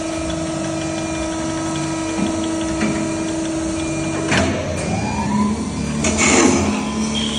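Automatic CNC wood lathe running with a steady motor hum. About four seconds in there is a sharp clack and the hum changes pitch, and a louder noisy burst comes about six seconds in.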